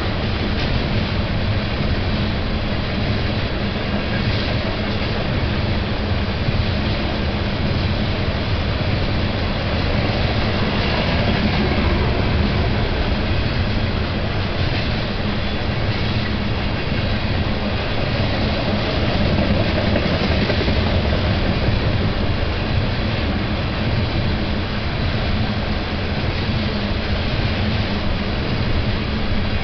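The tank cars of a BNSF oil train rolling past, steel wheels on rail giving a steady, continuous rumble and clatter.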